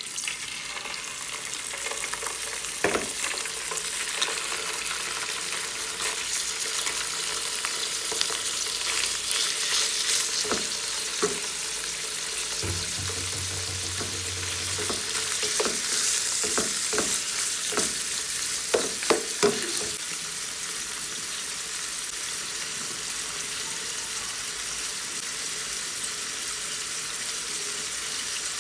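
Food sizzling as it fries in a pan, with a utensil stirring and knocking against the pan now and then, most often between about ten and twenty seconds in.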